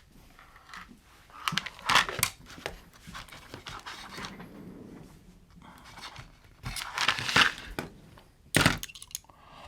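Rummaging through a collection of metal drill bits while searching for one: scattered clicks, rattles and rustling, with one sharp knock near the end.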